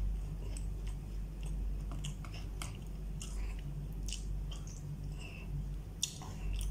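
A person chewing and eating close to the microphone, with many small irregular mouth clicks and smacks and light taps of a plastic spoon in a plastic food tray, over a steady low hum.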